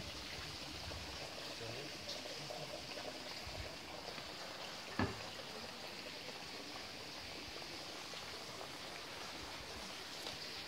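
Steady high hiss of outdoor ambience on a woodland footpath, with faint distant voices and a single sharp knock about halfway through.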